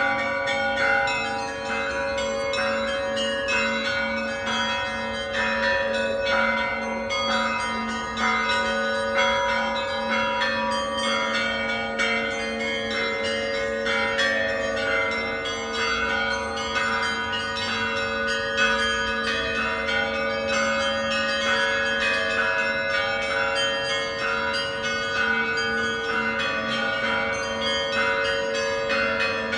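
Church bells ringing continuously: many smaller bells struck in quick succession over the steady sustained hum of larger bells.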